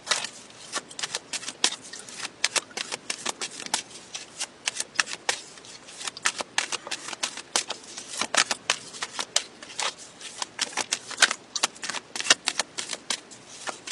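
A deck of cards being shuffled by hand: a long run of quick, irregular card snaps and flicks, several a second.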